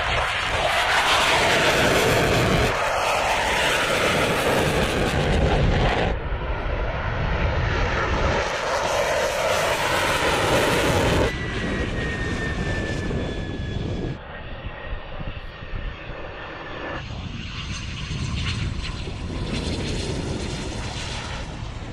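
Fighter jet engines at full power during takeoffs and landings, heard in several shots cut one after another: loud jet noise that changes suddenly at each cut, with a slightly falling whine about twelve seconds in.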